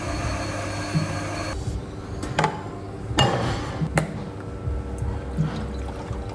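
Coffee being made behind a café counter: a hiss for about a second and a half, then a steady machine hum with three sharp knocks about a second apart, typical of an espresso machine's portafilter being knocked out.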